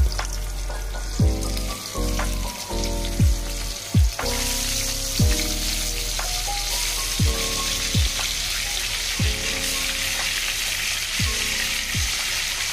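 Turmeric-coated fish steaks sizzling in hot oil in a wok, a steady frying hiss that grows louder about four seconds in. Background music with a steady beat of deep, falling bass-drum hits about once a second plays over it.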